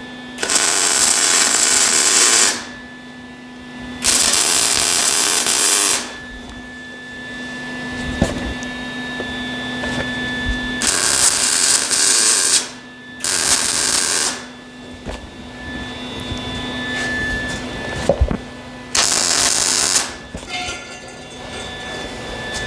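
MIG welder laying short weld beads along a sheet-steel seam: five crackling, sizzling bursts of one to two seconds each, with pauses between, building up extra weld to be ground and feathered later.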